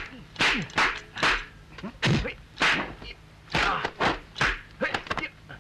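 Kung fu film fight sound effects: a rapid, irregular run of about a dozen sharp whooshing punch and block hits as two fighters trade blows.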